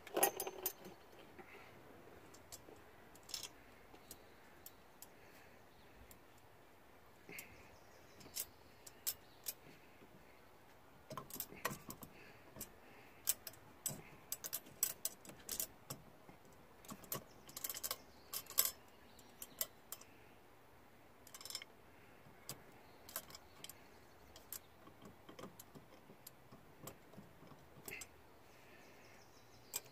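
Light metallic clicks and clinks as bolts are threaded by hand into the hub of a chrome chain steering wheel, its steel parts knocking together. The clicks are scattered, coming thickest in the middle stretch.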